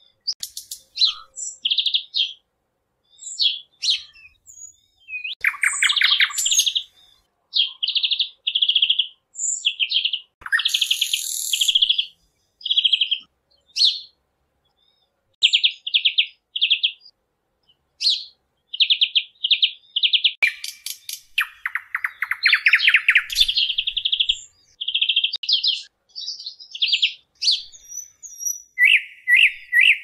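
Parrots chirping: a string of short, high chirps with short pauses between them, and two stretches of harsher, buzzier calls, about six seconds in and again a little past twenty seconds.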